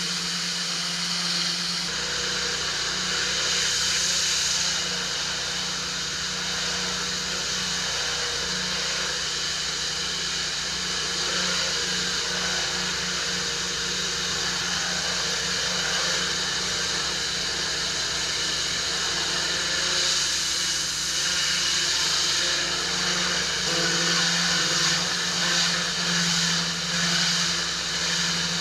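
Pressure washer running steadily: the machine's constant hum under the continuous hiss of its water spray.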